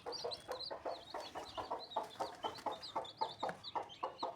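A brood of newly hatched desi chicks peeping continuously, many short high-pitched cheeps a second overlapping one another.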